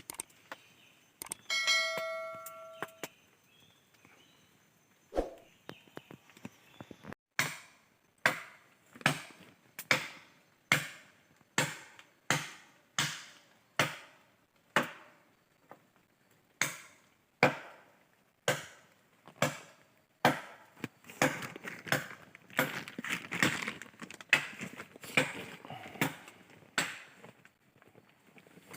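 Wood being chopped with a bladed tool: sharp strikes about once a second, then faster and closer together in the last third. A brief ringing tone about two seconds in.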